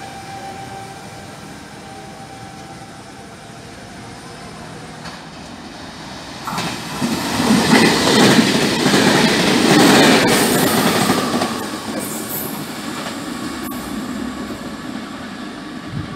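E.464 electric locomotive hauling Vivalto double-deck coaches, approaching and then passing through the station without stopping. A steady hum with a few held tones from the approaching locomotive gives way, about six and a half seconds in, to a loud rush of wheel and rail noise as the train goes by, with a few wheel clicks over rail joints, then easing to a lower rumble as it moves away.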